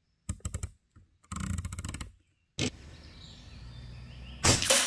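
Reximex Throne Gen 2 Compact .22 bullpup PCP air rifle: a quick run of mechanical clicks as the charging handle is cycled to cock it, then one sharp shot near the end.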